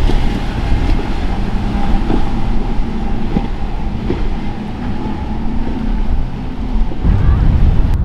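Outboard engines of a center-console fishing boat running at high speed, a steady loud drone, with rushing spray from the hull.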